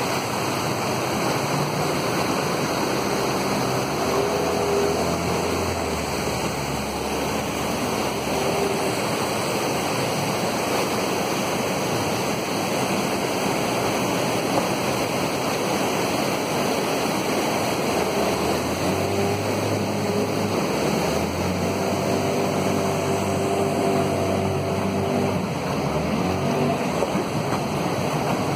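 River rapids: brown whitewater spilling over low rock ledges, a steady, even rush of water.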